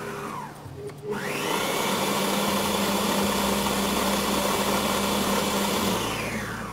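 Electric stand mixer running with its beater through hot boiled potatoes, mashing them. Its motor winds down just before a second in, starts again with a rising whine, runs steadily, then winds down near the end.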